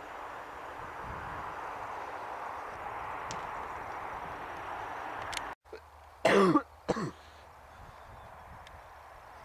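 A steady rushing noise, then it cuts off and a person clears their throat close to the microphone: one loud, falling throat-clearing sound followed by a shorter second one.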